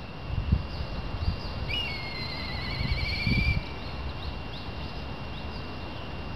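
Black kite calling once, about two seconds in: a quick rising whistle that breaks into a wavering trill held for nearly two seconds. Low bumps on the microphone come through now and then, the loudest near the start.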